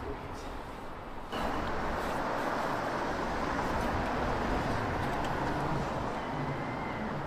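Steady street traffic noise, coming in suddenly about a second in.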